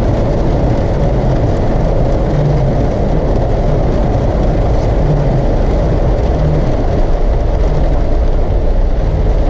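Steady road noise of a car driving, heard from inside the cabin: engine and tyre rumble with a constant hiss.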